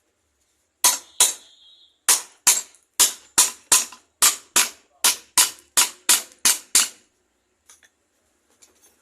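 About fifteen sharp hammer blows on the metal parts of an old electric motor, in quick runs of two to three a second, as the newly fitted bearings and end cover are tapped into place; one early blow leaves a brief high ring. A few faint clicks follow near the end.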